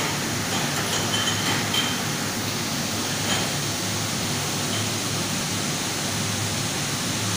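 Steady hiss of running machinery, with a few faint high metallic clinks and squeaks as the heavy steel door of a vacuum drying chamber is swung shut and its clamps are worked.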